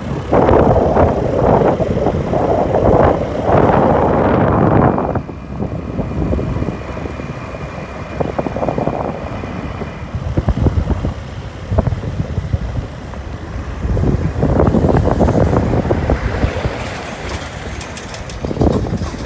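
Wind buffeting the microphone in loud gusts over the rumble of a moving vehicle.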